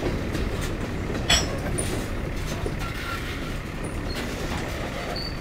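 A covered hopper sand car rolling along the rails during switching, its wheels rumbling on the track, with one sharp metallic clank about a second in.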